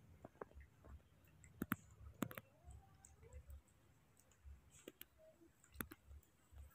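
Faint, scattered clicks and smacks of baby macaques eating papaya pieces, mouths chewing and hands touching the plastic plate, with two sharper clicks close together about a second and a half in and again just after two seconds.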